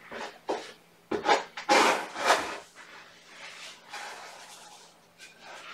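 Cat litter being scooped and scraped: a run of gritty scraping strokes in the first two and a half seconds, then softer rustling.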